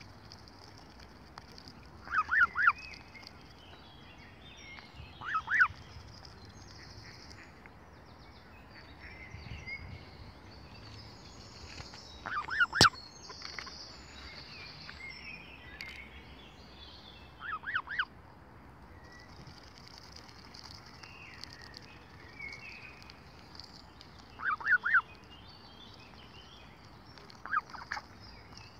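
Canada geese calling in short bursts of a few quick honking notes, about every three to seven seconds. One sharp click about thirteen seconds in.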